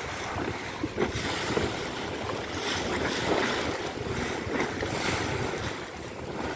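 Wind buffeting the microphone over the rush of water along the hull of a small wooden sailing raft (a jangada) under way in choppy sea, with repeated surges of splashing as the bow breaks through the waves.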